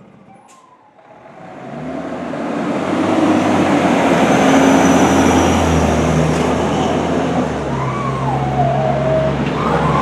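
Fire engine's diesel engine and tyres growing louder as it drives past close by, loudest around the middle, then holding as it pulls away. Near the end a faint wavering siren tone slides down in pitch.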